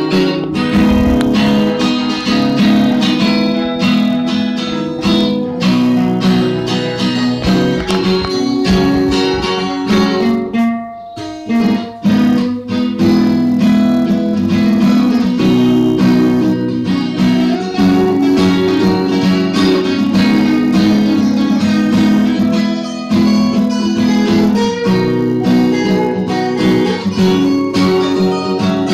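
Two steel-string acoustic guitars playing together, one of them with a capo, the other a black cutaway acoustic; the playing dips briefly about eleven seconds in and then carries on.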